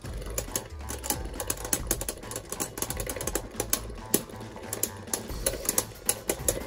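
Two spinning Beyblade tops, Mirage Fafnir and Pegasus, rubbing and knocking against each other in a plastic stadium, giving a rapid, irregular clicking.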